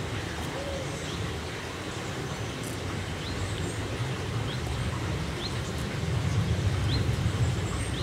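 Small mountain stream running with a steady rushing sound that grows a little louder near the end, while a bird gives short, high, rising notes about once a second through the second half.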